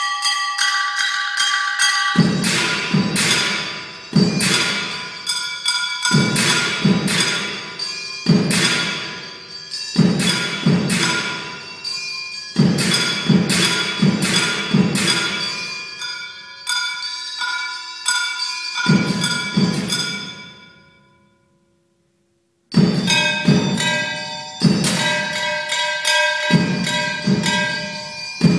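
Solo percussion on found metal objects: quick, rhythmic strikes with ringing bell-like tones over low thuds. About twenty seconds in the ringing dies away to near silence for about two seconds, then the strikes start again suddenly.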